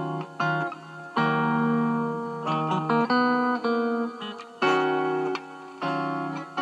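Background music: an acoustic guitar strumming a series of chords.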